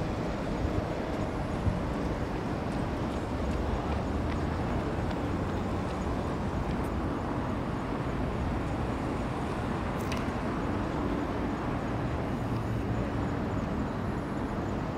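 Steady low hum of engines and city traffic by the river, with no distinct events apart from a couple of faint clicks.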